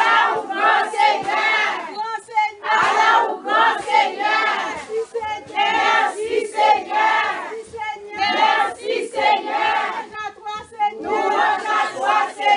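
A group of women praying aloud all at once, many voices loudly calling out and overlapping.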